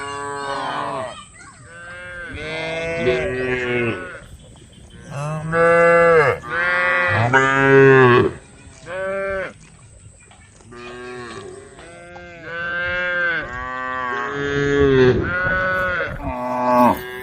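A herd of cows mooing, one call after another with several voices overlapping; the loudest calls come near the middle.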